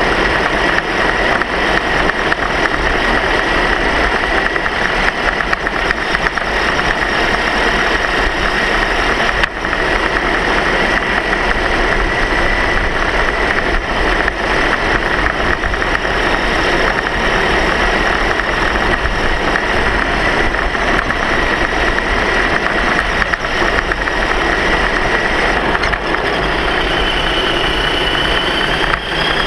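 A motor vehicle's engine running steadily at a slow, constant speed, with a steady whine over it. Near the end a fainter, higher whine rises.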